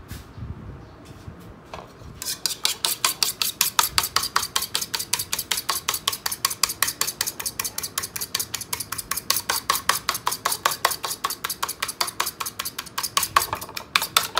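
A utensil beating a raw egg in a bowl: a fast, even run of clicks against the bowl, about five a second, starting about two seconds in after a couple of light knocks.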